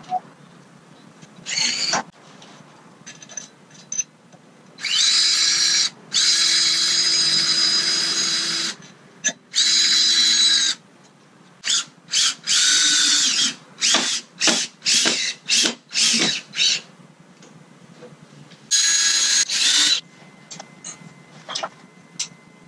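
Cordless drill/driver running in bursts: three runs of one to two and a half seconds, then a quick string of short trigger pulses, and one more run near the end.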